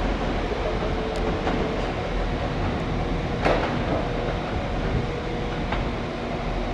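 TransPennine Express multiple unit running slowly beside the platform: a steady hum with a few wheel clicks over rail joints, the sharpest about three and a half seconds in.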